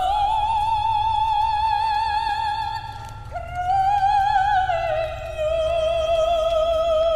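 A woman singing high operatic notes with a wide vibrato: one long held note, then after a brief break a second note that slides down to a lower one and is held.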